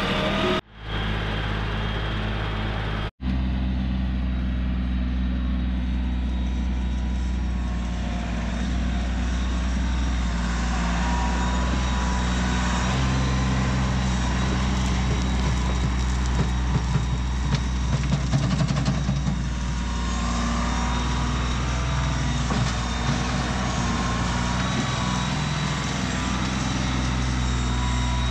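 Compact tractor's diesel engine running steadily while it moves dirt and brush with its front loader, with some rattles and knocks about halfway through. The sound cuts out briefly twice in the first few seconds.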